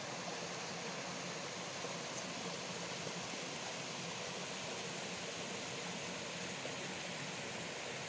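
Steady rush of a mountain stream spilling over boulders in small cascades into a pool.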